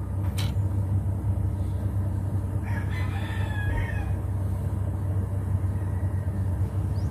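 A rooster crowing once, a call of about a second and a half in the middle, over a steady low hum; a single click sounds just after the start.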